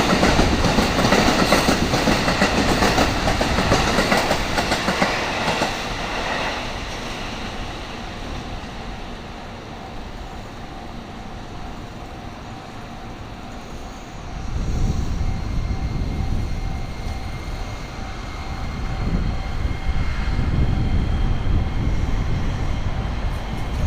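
Electric trains passing a level crossing: the first train's wheels clack by loudly and fade out about six seconds in, leaving a steady crossing-bell tone, and about fourteen seconds in a second train rumbles up.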